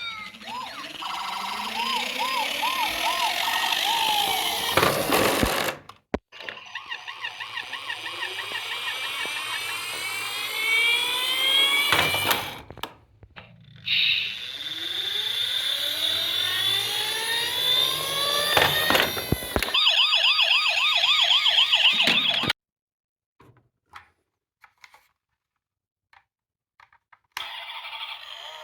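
Several toy ambulance and police car sirens sounding at once: overlapping rising-and-falling wails and rapid warbling yelps, cutting off abruptly a few times. After about 22 seconds they stop, leaving a few faint clicks, and a noisier sound returns near the end.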